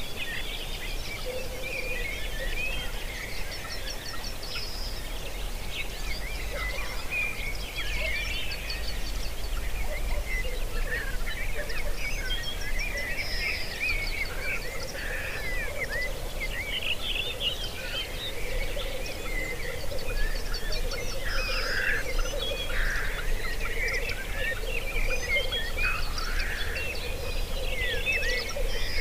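Black grouse lekking: the males' continuous low bubbling coo, growing steadier after the first few seconds, under a busy mix of chirps and whistles from other birds, with a few short hissing calls late on.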